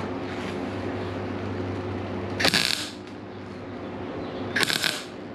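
Wire-feed MIG welder arc crackling on body sheet metal in two short stitch welds, each about half a second, over a steady background hum.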